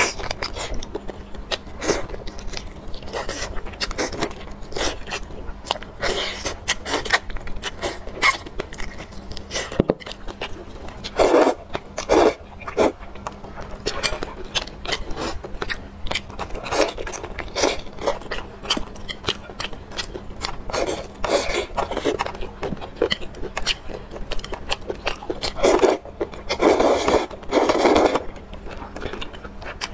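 Close-miked eating of glass noodles in sauce and soft bread: wet chewing and lip smacks. Longer, louder slurps come about eleven seconds in and again near the end.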